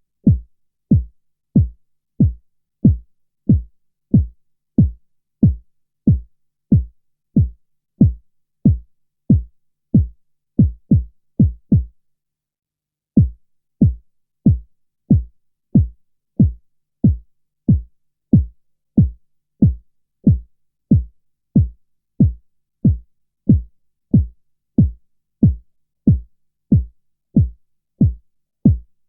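A bass-only kick-drum beat from a music track's subwoofer (LFE) channel: short, deep thumps about three every two seconds, each dropping quickly in pitch. The beat speeds up briefly, pauses for about a second near twelve seconds in, then carries on.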